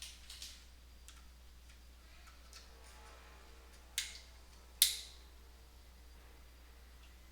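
Relay inside an Ameritec AM-48 transmission test set clicking on and not staying: a few sharp clicks, the two loudest about four and five seconds in, over a low steady mains hum. The set is failing to stay powered on.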